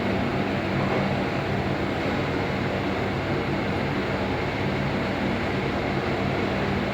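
Lift car travelling down its shaft, heard from inside the car: a steady hum with low tones and an even rush of air and machinery noise.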